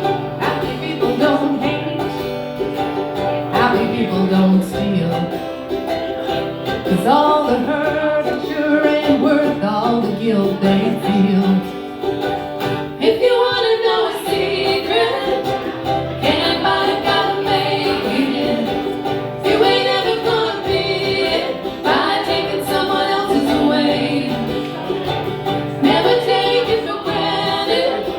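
Live singing accompanied by an acoustic plucked-string instrument, a country-style song performed without amplified backing band.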